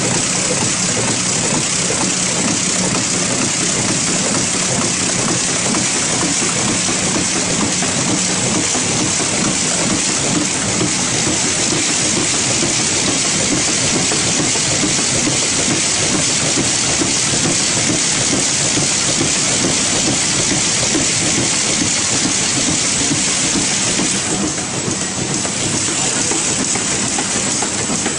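Corrugated-carton folding and gluing machine running at high speed, a steady dense clatter of belts, rollers and feeding blanks with hiss and a low hum. It eases slightly a few seconds before the end.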